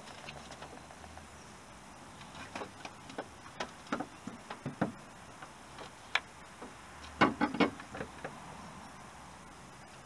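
Ratchet of a torque wrench clicking on a VW Golf mk2's crankshaft pulley bolt as it is tightened toward 200 Nm: scattered irregular clicks, then a loud quick cluster of clicks about seven seconds in.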